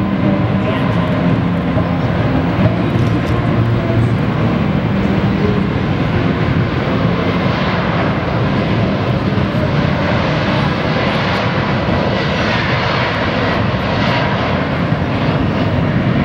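A Boeing 777-200ER's twin turbofan engines at takeoff thrust during the takeoff roll: a loud, steady jet noise. Its higher hissing part grows from about halfway through.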